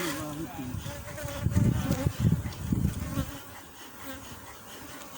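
Honeybees buzzing, a wavering pitched drone most prominent at first. A few low rumbling bursts come in the middle, and then the sound fades down.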